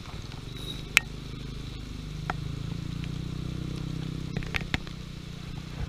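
An engine running steadily with a low hum that swells a little about two seconds in, with a few sharp clicks over it.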